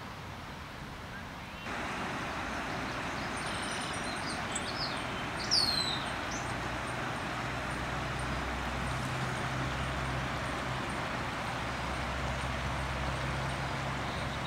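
Outdoor ambience: a steady rushing hiss that grows louder about two seconds in, and a low drone from about six seconds in. A few high chirps come around the middle, the loudest a quick falling whistle.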